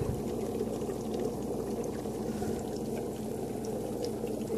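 Aquarium filter running: a steady low hum with water flowing. A short low bump comes right at the start.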